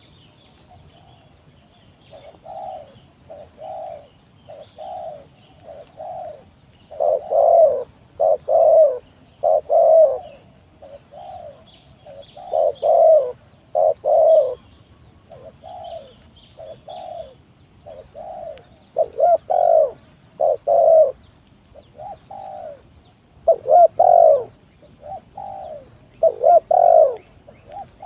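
Spotted dove (tekukur) cooing over and over in short phrases, a lure call used to draw other doves. The coos begin about two seconds in, and some are much louder than the rest.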